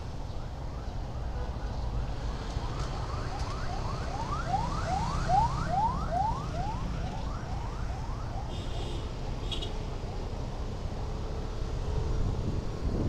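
A siren giving rapid rising whoops, about four a second, swelling and then fading over several seconds. A steady low rumble from a motorcycle engine and road noise runs beneath it.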